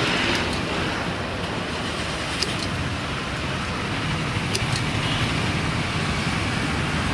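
Steady road traffic noise from passing vehicles, with a few light clicks about two and a half and four and a half seconds in.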